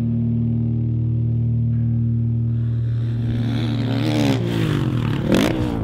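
A dirt bike engine revving, its pitch rising and falling quickly from about three seconds in. Before that there is a steady low drone.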